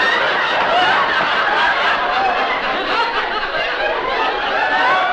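Studio audience laughing, steady and unbroken throughout.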